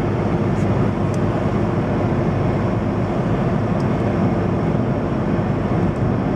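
In-cabin noise of a VW Lupo 3L cruising steadily at about 100 km/h. Wind and road noise mix with a low, even drone from its 1.2 TDI three-cylinder turbodiesel at about 2,000 rpm. The free-flow exhaust has no mufflers but stays quiet at this speed, because the turbo acts as the muffler.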